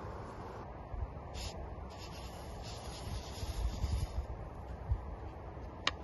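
Dry rice grains poured from a wooden bowl into a pot of water, a rustling hiss lasting a few seconds, with a sharp click near the end.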